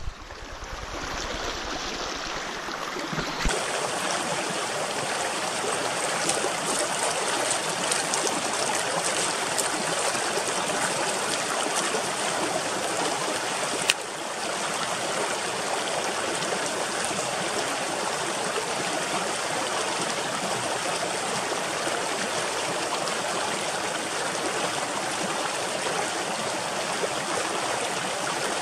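Water rushing steadily in a stream, an even, continuous noise, broken once about halfway through by a sharp click and a slight drop in level.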